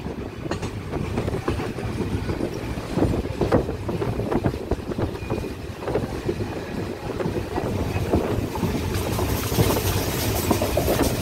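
Running noise of a moving train heard from inside a carriage: a steady rumble with an irregular clatter of wheels knocking over the rails.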